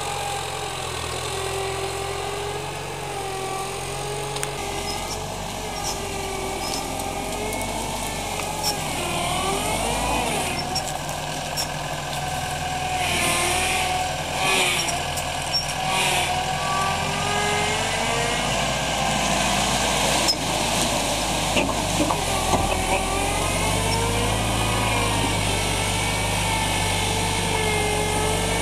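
Engine of a Balkancar Record rough-terrain forklift running as the machine drives over rough ground, its pitch rising and falling as the engine speed changes, with a few short louder clatters around the middle.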